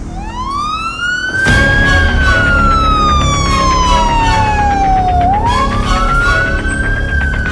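A wailing siren that climbs quickly in pitch and then falls away slowly, twice over. Under it plays background music with a steady beat that comes in about a second and a half in.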